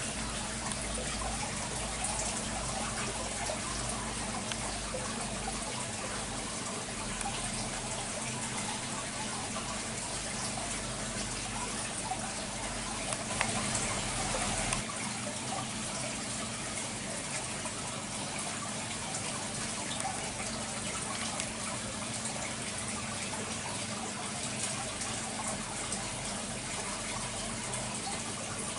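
Water running and splashing steadily in a fish-rearing tank, with a low steady hum underneath; a deeper rumble drops out about halfway through.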